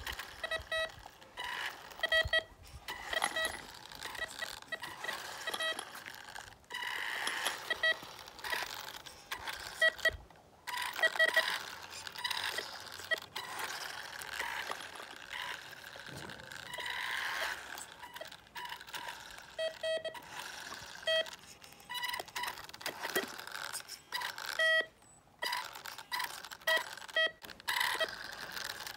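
Homemade metal detector's buzzer giving short electronic beeps in irregular clusters: the alarm signalling metal under the detector. A fainter rough noise runs beneath the beeps.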